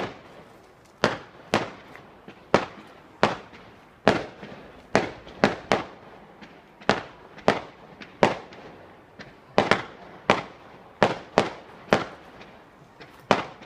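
Fireworks going off at a display: a steady barrage of sharp bangs, one or two a second at uneven spacing, each with a short echoing tail.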